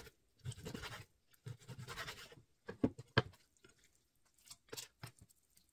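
Chef's knife sawing through raw pork belly on a wooden cutting board, two rasping strokes, then two sharp knocks on the board about three seconds in, followed by faint handling of the meat pieces.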